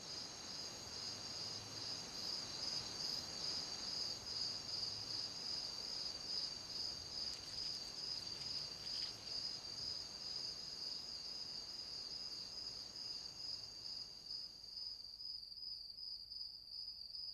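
Night insect chorus: a steady, high-pitched pulsing trill with a fainter, higher trill that fades out near the end.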